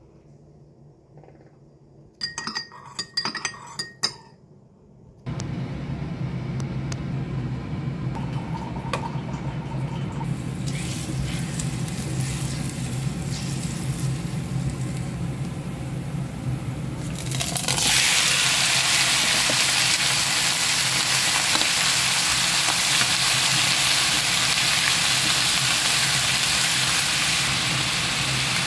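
A few seconds of clinking and rattling, then oil frying in a pan with a steady low hum under it. About two-thirds of the way through, a loud, steady sizzle takes over as raw chicken pieces fry in the hot oil.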